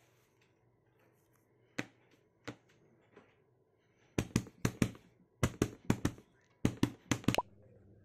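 A hand slapping the pages of an open paper notebook: two single taps, then three quick bursts of about four slaps each in a clickety-clack rhythm, foley for a train's wheels running over rail joints.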